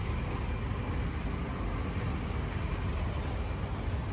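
Suzuki Katana's 999 cc inline-four engine idling steadily.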